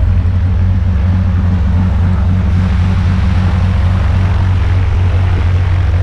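Single-engine high-wing jump plane's piston engine and propeller running on the ground, a loud steady low drone with a rushing hiss over it.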